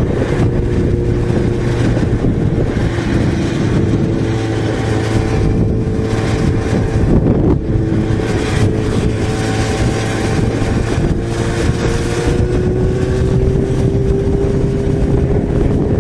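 Yamaha XJ6 motorcycle's inline-four engine running steadily at road speed, with wind rushing over the helmet microphone. The engine note dips briefly about halfway through, then climbs slowly toward the end.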